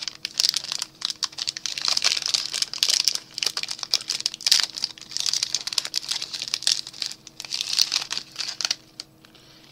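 Wrapper of an Atkins Caramel Nut Chew bar crinkling and tearing as the bar is unwrapped by hand, a dense irregular crackle that dies away about nine seconds in.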